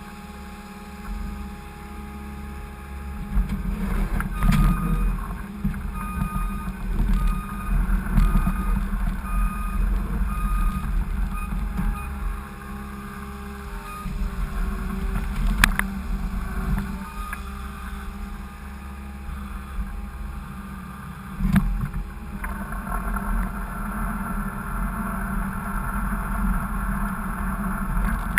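Skid steer engine running and working, with a few sharp clanks, and a backup alarm beeping about once a second for several seconds in the first half.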